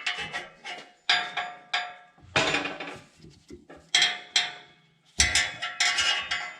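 Steel exhaust hanger rods clanking and clinking against metal as they are handled and fitted. It is an irregular series of sharp metallic knocks, each ringing briefly.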